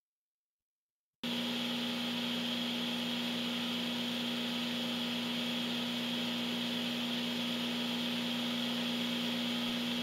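Microwave oven running: a steady electrical hum with fan hiss, cutting in abruptly about a second in and holding level.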